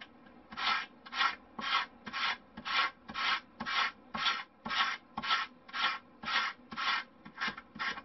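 Balsa-wood glider fuselage being hand-sanded with P180-grit sandpaper on a wooden block, in short even strokes about two a second. The strokes come a little closer together near the end.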